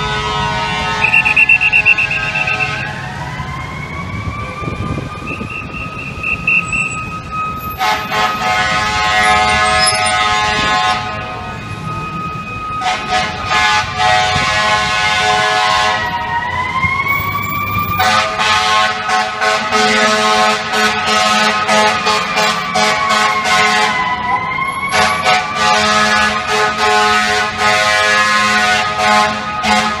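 Fire engine siren wailing, winding slowly up and down in pitch, joined through the second half by long, repeated air horn blasts.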